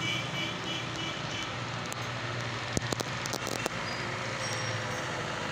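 Street noise with a vehicle engine running steadily, and a few sharp clicks about three seconds in.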